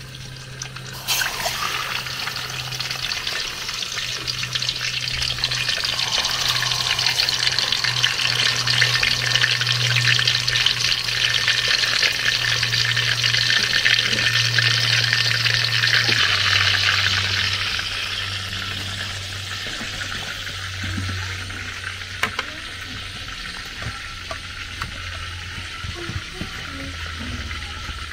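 Pieces of Atlantic croaker and mackerel sizzling in hot oil in a wide aluminium pot. The sizzle starts suddenly about a second in as the fish goes into the oil, builds, then eases to a softer sizzle over the second half.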